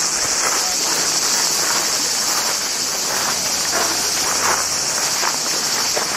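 Steady, high-pitched buzzing chorus of cicadas in the trees, unbroken throughout, with faint scattered small sounds beneath it.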